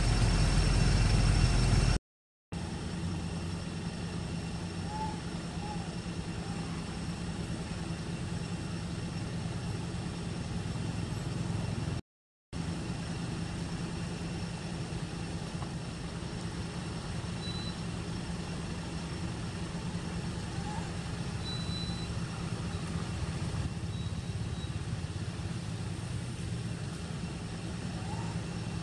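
Steady low outdoor drone like distant engine or traffic noise, with a few faint short rising chirps. The sound cuts out completely twice, briefly.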